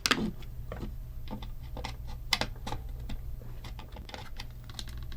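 Irregular light clicks and taps of small plastic parts being handled, from the gearbox of an animated novelty hat, over a low steady hum.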